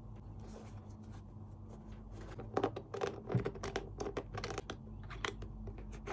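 Fingers scratching and rubbing over the textured upper and raised grip elements of an Adidas Predator Accuracy football boot: a run of short, scratchy rustles from about two and a half seconds in to a little past five seconds, with one more near the end, over a faint steady hum.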